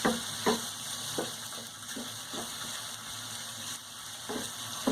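Shrimp frying in hot oil in a frying pan, a steady sizzle, while a utensil stirring them knocks and scrapes against the pan several times.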